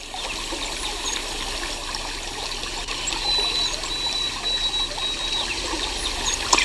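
Water trickling and babbling steadily, like a shallow stream running over stones, with a brief louder burst near the end.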